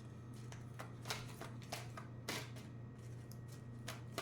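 Tarot cards being handled: a scattered series of short, soft snaps and flicks as cards are shuffled, pulled and laid down, over a low steady hum.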